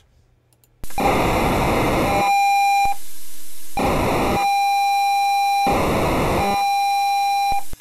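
FLEX pager data signal at 1600 baud, a two-level frequency-shift-keyed transmission pushing out paging traffic fast. A harsh, hissy data stream starts about a second in and alternates with stretches of steady tone, then cuts off abruptly near the end.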